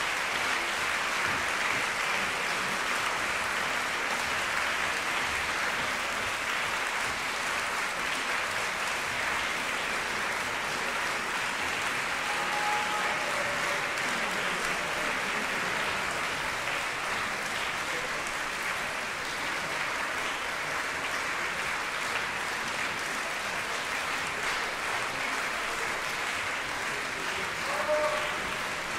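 Concert audience applauding steadily, a dense, even run of clapping that keeps going throughout.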